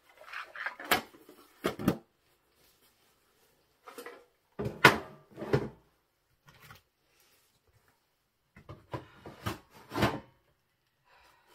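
Metal craft tins and storage containers being closed and shifted on wooden shelves: sharp knocks and clatters in three bursts, about a second in, around five seconds, and around nine to ten seconds.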